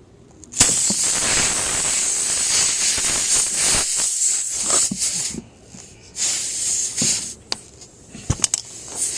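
Air hissing out of a punctured tire around the plug insertion tool as it is worked in the hole, the tire losing pressure. The hiss comes in long spurts with short breaks, with a few sharp clicks near the end.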